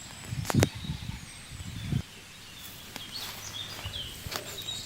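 Small birds chirping in short calls over outdoor ambience. A sharp knock about half a second in is the loudest sound, and there are a few low thumps.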